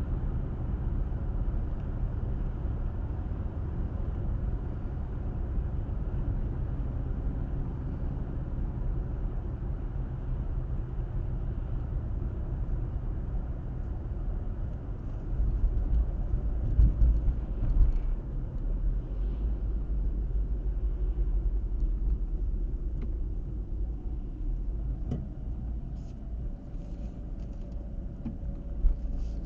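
A car's steady road and engine rumble while driving, low and even. The low rumble grows louder for a few seconds about halfway through, and a few light knocks come near the end.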